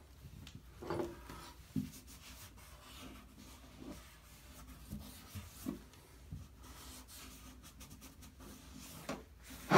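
Rag rubbing and wiping over the bathtub surface around the drain, clearing away excess plumber's putty squeezed out from under the new drain flange, with a few light knocks and a louder bump near the end.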